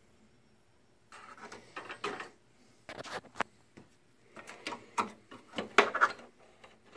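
Small plastic and metal parts being handled inside an open projector chassis as a connector is worked onto its pins: irregular clicks, taps and scrapes, starting about a second in.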